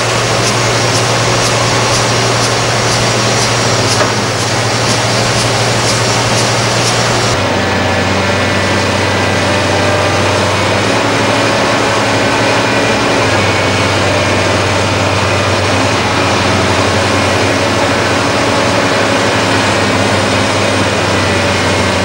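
Diesel engine of a Liebherr R962 Litronic crawler excavator running steadily, a continuous low drone. A light regular ticking, about three a second, runs with it at first. About seven seconds in, the sound changes abruptly to a slightly lower, even drone.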